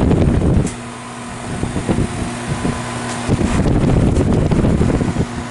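Goodman GSH13 heat pump outdoor unit running in heating mode, a steady low hum, broken by loud bursts of wind rumbling on the microphone at the start and again through the middle.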